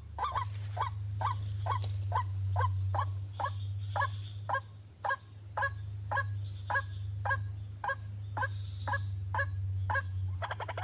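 White-breasted waterhen (ruak-ruak) calling, a run of short, evenly repeated honking notes at about three a second, over a steady low hum.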